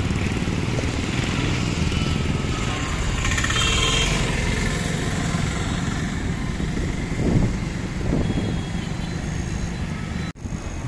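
Steady road traffic: motorcycles and auto-rickshaws running past, with a brief high tone about three and a half seconds in. The sound drops out for an instant near the end.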